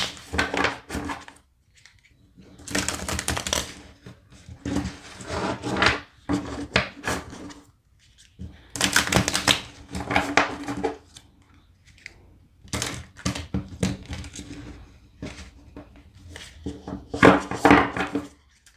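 A tarot deck being shuffled by hand: the cards riffle and slap against each other in about seven bursts of rapid clicking, each a second or two long, with short pauses between them.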